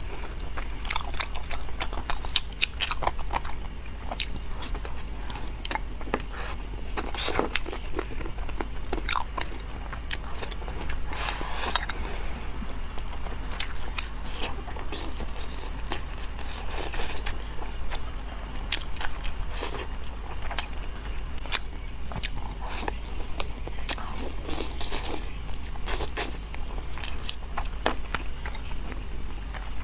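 Close-miked eating of spicy chicken wings: irregular bites and chewing, with many short crunchy and wet clicks. A steady low hum runs underneath.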